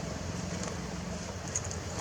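Steady low hum of an engine running nearby, with a few faint high ticks.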